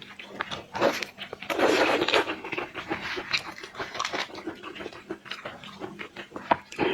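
Close-up eating sounds: irregular wet sucking and chewing, with many sharp clicks.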